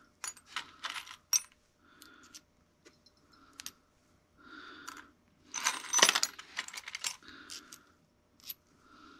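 Loose steel washers clinking and jingling as hands rummage through a tray of them, with a busier burst of rattling about six seconds in.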